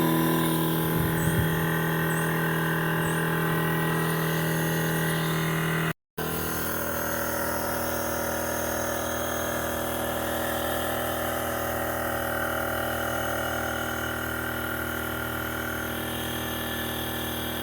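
Air compressor running steadily with a constant motor hum; the sound drops out for a moment about six seconds in.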